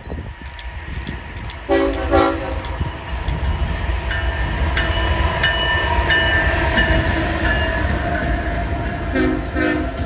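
Diesel freight locomotives passing with a steady engine rumble, sounding the air horn in two short blasts about two seconds in and two more near the end. A higher ringing tone runs through the middle as the double-stack container cars roll by.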